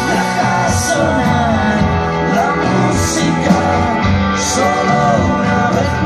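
A live rock band playing: electric guitars, bass, drums and organ-style keyboard, with a bending melodic lead line and a few cymbal splashes.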